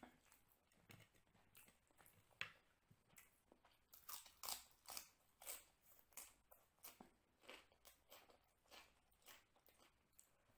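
Faint close-up chewing of a mouthful of chicken biryani, in regular chews about two a second after a few sparser ones at the start.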